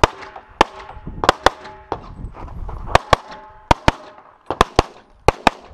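Pistol shots fired in quick pairs and short strings, about fourteen sharp reports. A steady metallic ringing hangs on after the first shots and again about three seconds in.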